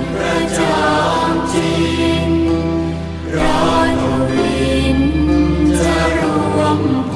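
Thai Buddhist devotional song: voices, likely a choir, singing long held notes of a hymn praising the monk, over an instrumental accompaniment with steady bass notes and occasional bright strikes.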